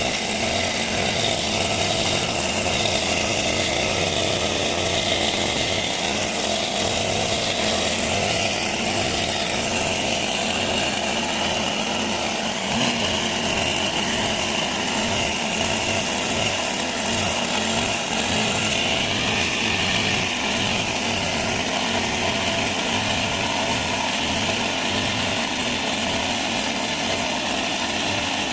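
Chainsaw running steadily as it planes the face of a wooden plank.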